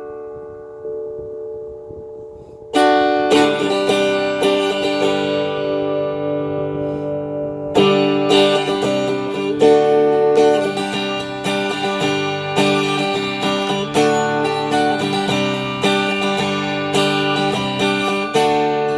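Taylor T5z hybrid electric-acoustic guitar played through an amp on its acoustic-voiced pickup setting (position 1). A chord rings and fades, then strummed chords begin about three seconds in and carry on in a steady rhythm.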